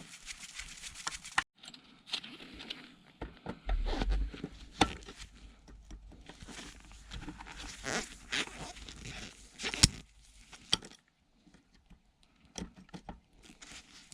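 Hand teardown of an old electronic unit: a flathead screwdriver scraping and clicking against screws, with parts being handled and knocked. There is a low bump about four seconds in, and a short quiet spell near the end.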